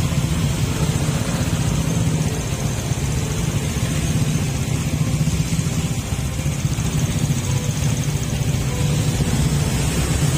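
A motor vehicle's engine running steadily, with a constant low hum and noise that stay level throughout.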